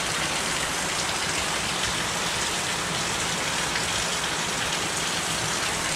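Heavy rain pouring down steadily, a tropical downpour.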